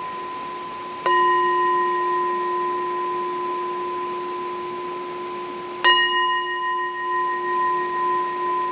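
A struck bell-like metal instrument ringing with a long sustain of a few steady tones, struck again about a second in and once more near six seconds; after the second strike the ring wavers in loudness as it fades.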